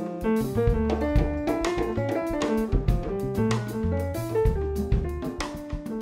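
Instrumental band music: a drum kit keeps time under quick runs of pitched notes.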